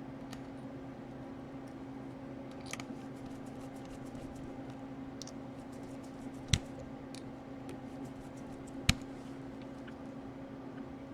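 Small parts and tools being handled on a laptop during reassembly: scattered light clicks, with two sharp knocks about six and a half and nine seconds in, over a steady low hum.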